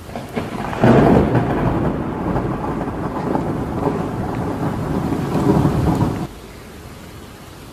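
Thunderstorm sound effect: thunder rumbling over rain. It comes in about a second in and cuts off suddenly about six seconds in.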